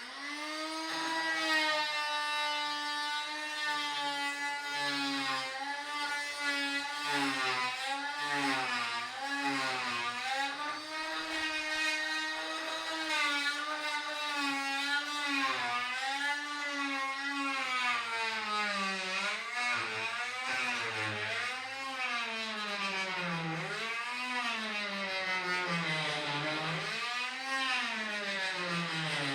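Rockwell oscillating multi-tool running and cutting, a steady high motor whine whose pitch sags and recovers over and over as the blade is pressed into the work. The dips come more often and run deeper in the second half.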